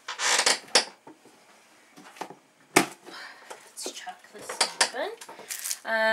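Small plastic containers and diamond painting drills being handled on a tabletop during kitting up: irregular clicks, clinks and rattles, with one sharp click about three seconds in.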